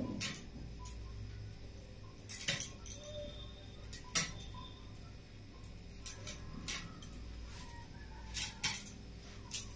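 Kitchen knife scraping the scales off a small whole fish: irregular short scratchy scrapes and clicks, some in quick clusters, over a steady low hum.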